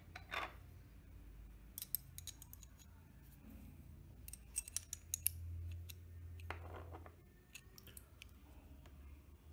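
Scattered sharp clicks and snips of tools and small RC car parts being worked by hand, over a low steady hum, with a cluster of clicks about halfway through.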